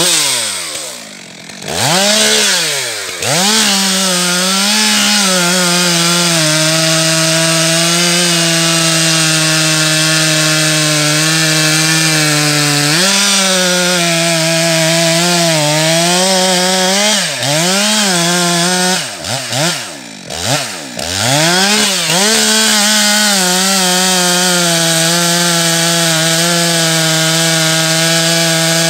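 Stihl MS 462 two-stroke chainsaw cutting into beech at full throttle, its pitch held steady for long stretches. The throttle drops and picks back up a few seconds in, and again several times past the middle.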